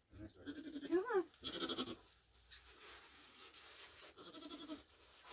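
Nigerian Dwarf goats bleating softly around a newborn kid: a few short bleats in the first two seconds, one rising in pitch about a second in, and another near the end.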